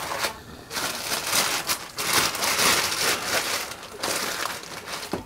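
Thin clear plastic bag holding raw glutinous rice crinkling in irregular spells as hands squeeze and fold it.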